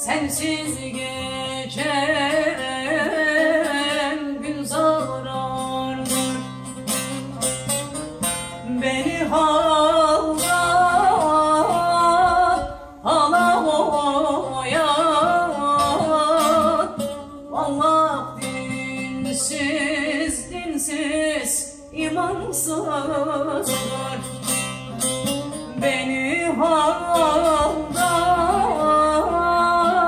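A woman singing a Turkish folk song (türkü) in a melismatic voice, her pitch bending and ornamented, accompanied by a bağlama (long-necked Turkish saz) being strummed and plucked.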